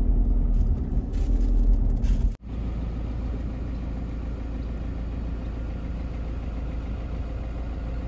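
Vehicle engine running with a low rumble. About two and a half seconds in it cuts off abruptly, and a steadier, quieter low hum continues.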